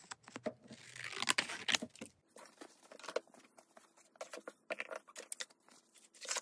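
Quiet handling noises: rustling of a sheet of white fabric and loose craft materials, with scattered light clicks and taps.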